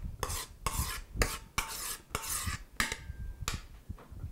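A spoon scraping a thick cream mixture out of a bowl into a glass dessert bowl, in a series of short scrapes about half a second apart.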